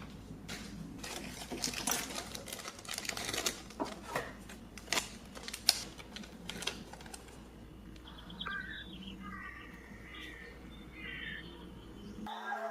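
Small hard plastic toy pieces clicking and knocking together as they are handled, in quick irregular clicks. The clicking dies away about seven seconds in, leaving faint short chirps.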